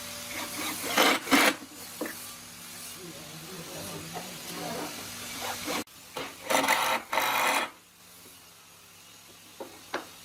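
A hand tool scraping across wood in short strokes: a pair of strokes about a second in, then a louder run of strokes in the middle, with a few light knocks between, over a faint steady low hum.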